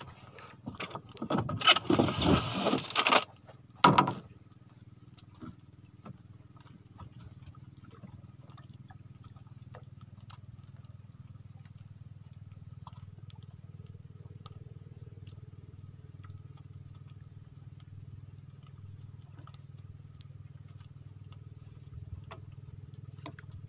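A loud rush of noise lasting about two seconds, then a single sharp knock, followed by a steady low engine hum.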